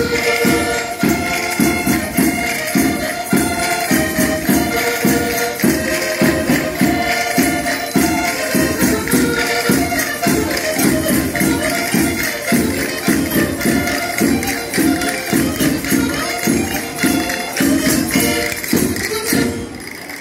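Portuguese folk ensemble (rusga) playing: a button accordion holds the melody over a steady, fast beat with tambourines shaking along. The music stops just before the end.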